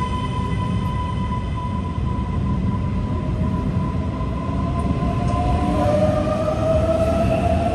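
Keisei AE-series Skyliner electric train accelerating past the platform: wheels rumbling on the rails. A steady whine dies away about six seconds in, while a second whine climbs in pitch and grows louder as the train gathers speed.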